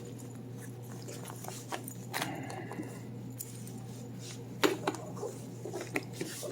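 Scattered rustles and light clicks from handling the cable management sleeves, over a steady low electrical hum.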